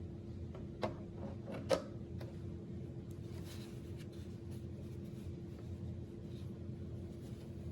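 Two sharp clicks a little under a second apart, then faint rubbing and rustling, over a steady low hum.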